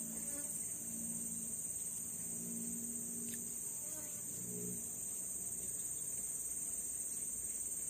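Steady high-pitched insect chorus trilling without a break.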